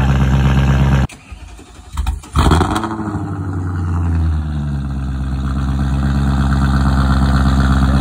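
BMW E39 540i's 4.4-litre V8 on a cold start, running loud through hollowed-out catalytic converters. About a second in the engine sound cuts off. About a second and a half later the engine starts again, catching with a short rev, and settles into a steady idle.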